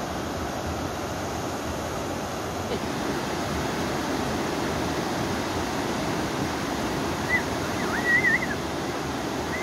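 Steady rush of a boulder-strewn mountain river running in white-water rapids, the Binwa. Near the end a short, high, wavering whistle-like call sounds twice.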